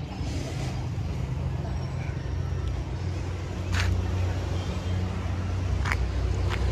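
Steady low rumble of a car engine running, growing a little stronger about four seconds in, with three short sharp clicks, one about four seconds in and two near the end.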